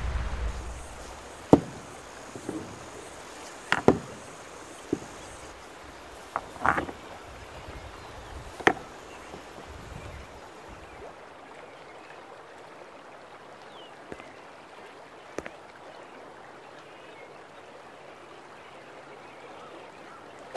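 Faint steady outdoor ambience of flowing river water, broken by a handful of short knocks and scuffs, most of them in the first nine seconds.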